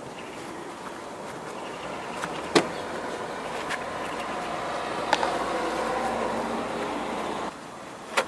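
A motor vehicle running nearby, growing louder and then stopping suddenly near the end. Three sharp knocks come a few seconds apart.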